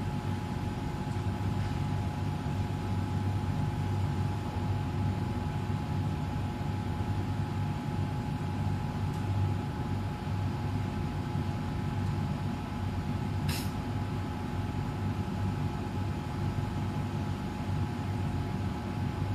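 Dumpling-making machine running steadily: a low mechanical hum with a constant high whine over it, and one sharp click about two-thirds of the way through.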